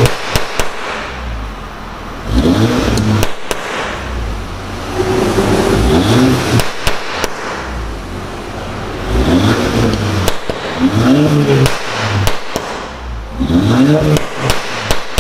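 Volkswagen Scirocco 2.0 TSI's turbocharged four-cylinder, revved through its exhaust in about five short throttle blips from idle. Each blip rises in pitch and falls back, and sharp crackles and pops come between the blips as the throttle closes.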